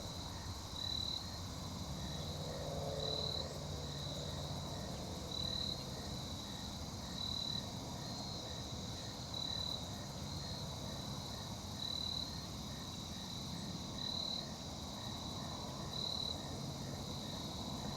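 Insects trilling: a steady high trill that swells about every two seconds, with a fainter, lower pulsing chirp about twice a second over a low rumble.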